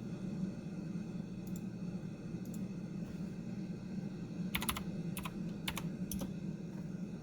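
Scattered computer keyboard clicks, with a quick cluster of keystrokes about four and a half seconds in and a few single taps around it. Under them runs a steady low static hiss from the radio receiver's audio, which is not yet picking up a station.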